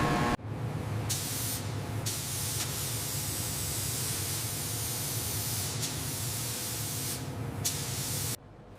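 A steady spraying hiss with a low rumble under it, starting abruptly and cutting off suddenly near the end. A sharper, higher hiss comes in briefly twice.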